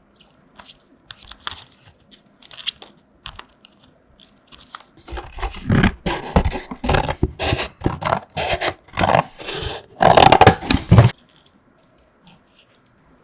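Close-up crinkling and crunching of snacks being handled: scattered small crackles for about five seconds, then dense crunching and tearing for about six seconds, which stops suddenly.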